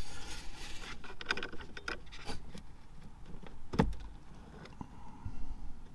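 Hands working a heater core line fitting and its plastic retaining clip: scattered small clicks and rattles, with one sharper knock about four seconds in.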